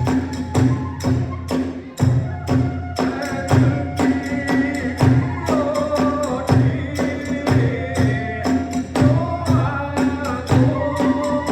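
Hiroshima kagura hayashi: drums and tebyōshi hand cymbals beating a fast, steady rhythm, with a bamboo fue flute melody coming in about two and a half seconds in.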